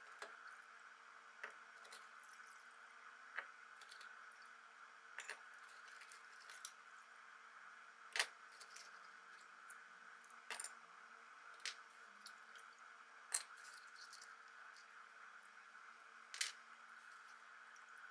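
Small metal blowtorch parts clinking as they are lifted out of a tub of soaking liquid and set down on a wooden bench: about a dozen short, sharp clicks at irregular intervals, over a faint steady hum.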